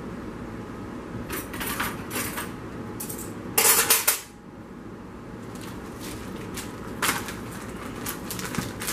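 Cloth rustling and the crinkle of a plastic chip bag as a towel bundle is unwrapped and the bag inside is handled, in short bursts, loudest about three and a half seconds in.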